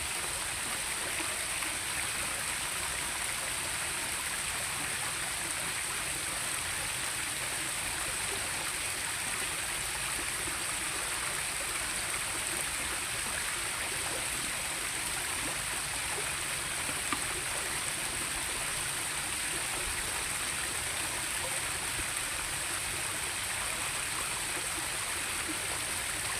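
Steady rushing of flowing stream water, with an unchanging high-pitched hiss over it.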